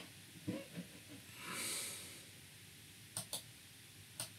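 A quiet pause in speech. About a second and a half in there is a soft hiss lasting about half a second, and near the end a few faint short clicks.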